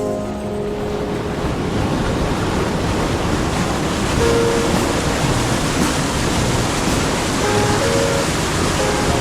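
Water rushing steadily over a foaming cascade of low rapids, each drop up to about 1.5 m. Faint music notes sound over it about four seconds in and again near the end.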